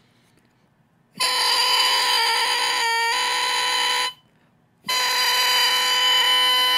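Oboe reed crowing: two blown crows of about three seconds each, separated by a short breath, each a steady buzzy tone rich in overtones. The crow sits flat, around B rather than C, and the maker finds it better after making the back of the reed more symmetrical.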